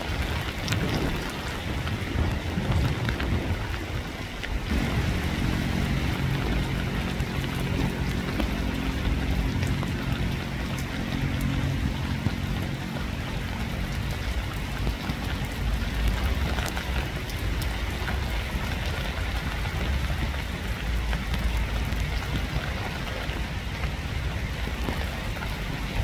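Steady rain falling, an even hiss. From about five seconds in until around fourteen seconds a low steady hum sits under the rain.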